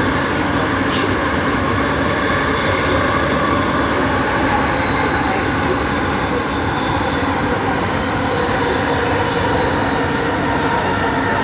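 Bombardier Innovia ART 200 train running, heard from inside the car: steady running noise with a high whine from its linear induction motor drive.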